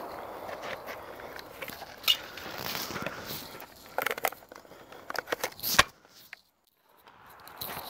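Shuffling and footsteps on gravel with scattered clicks and knocks from handling a Beretta CX4 Storm 9mm carbine behind cover, and one sharp, loud crack just before six seconds in.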